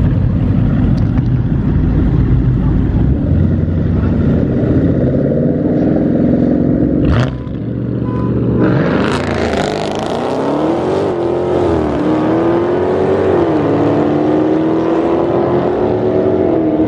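A Dodge Charger Scat Pack and a Coyote V8 Mustang rumbling side by side at the line, then launching together about eight and a half seconds in, with a short sharp crack just before. Their engines climb in pitch and drop back at each upshift, three or four times, as they pull away down the road.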